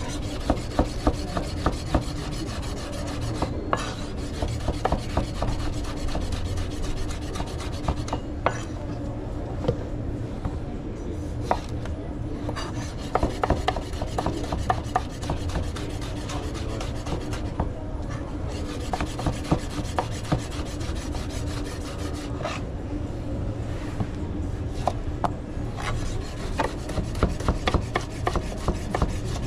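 Kitchen food preparation: rapid, irregular scraping and rubbing strokes of a utensil, over a steady low hum.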